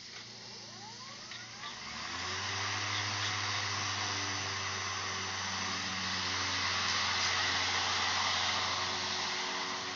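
Cordless electric lawn mower (EGO Power+ LM2102SP, 56-volt) spinning up with a rising whine over the first two seconds, then running with a steady whir of motor and blade. Its low hum drops out near the end.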